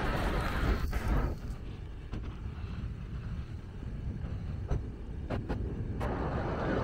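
Steady low rumble of city street traffic, with a few faint clicks. The brighter street noise above it drops away about a second in and comes back near the end.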